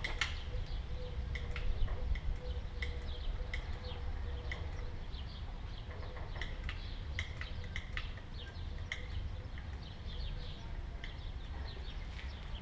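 Small birds chirping in short, repeated calls over a steady low background rumble, with a few sharp clicks in between.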